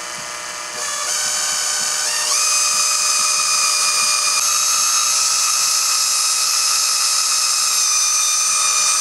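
Power drill turning a bit through a flexible extension, drilling a hole in a coolant pipe fitting so it can be pinned. A steady high whine that steps up in pitch about a second in and again about two seconds in, then holds steady.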